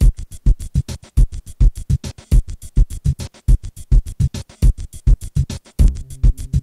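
Electronic background music with a fast, even drum-machine beat, strong low kicks about twice a second; a held bass note comes in near the end.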